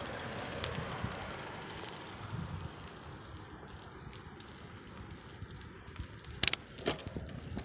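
Bicycle riding noise heard from a handlebar-mounted camera: a steady rumble and crackle of tyres rolling on the path, with small rattles. Near the end come two sharp knocks close together, the loudest sounds.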